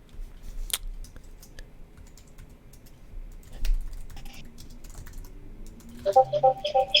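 Computer keyboard typing: scattered light key clicks. Music with steady tones begins about six seconds in.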